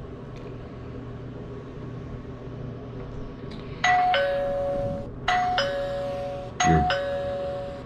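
Smart doorbell ringing with a ding-dong chime, a higher note then a lower one, repeated three times about every 1.4 seconds from about four seconds in, over a steady low hum.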